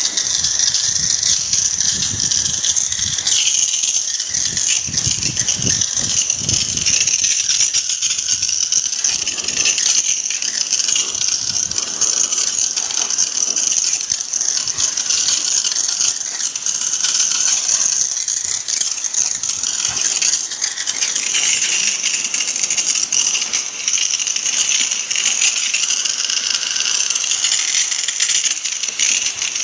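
High-pressure water jet from a pressure washer spray gun, hissing steadily as it sprays into a window-type air conditioner's coils, fan shroud and plastic housing, with water spattering against the metal and plastic.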